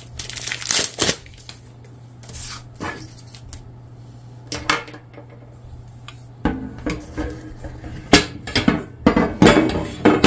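Heavy metal toothed mulching mower blades knocking and clinking against each other and onto a wooden tabletop as they are handled and laid out side by side. The sharp metal knocks come mostly in the second half, with a short ring after them; near the start there is some rustling.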